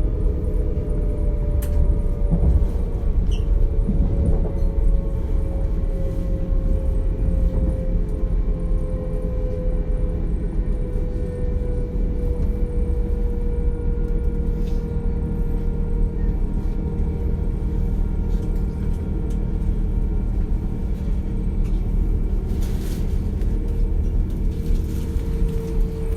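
DB class 425 electric multiple unit's traction drive whining with a steady tone that falls slowly in pitch, over the rumble of the running train, heard inside the carriage.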